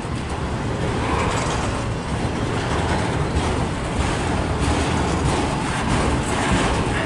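A long freight train's cars rolling past: steady noise of steel wheels on the rails.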